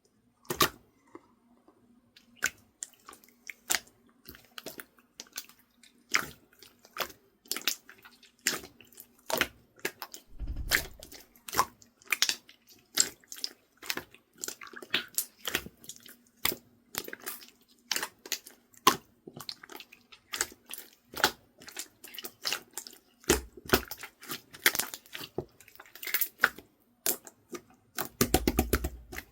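Slime being squished and pressed by hand, making irregular wet clicks and pops, with a few longer squelches, over a faint steady hum.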